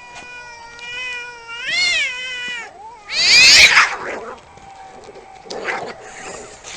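Domestic cats in a standoff: one long drawn-out yowl that climbs in pitch near its end, then a loud harsh hiss about three seconds in, and a shorter hiss a little later.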